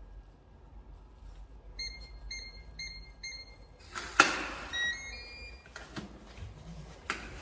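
Digital door lock keypad: four short electronic beeps as a code is entered, then a sharp clack of the lock mechanism about four seconds in and a short rising chime as it unlocks, followed by a few clicks of the handle and door.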